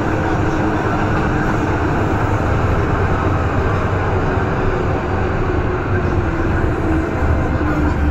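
MTR M-train electric multiple unit running through a tunnel, heard from inside the car: a loud, steady rumble of wheels on rail with a faint whine underneath.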